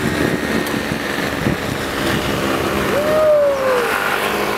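Motor vehicle engine running with steady road and wind noise. About three seconds in, a single tone rises and then slowly falls.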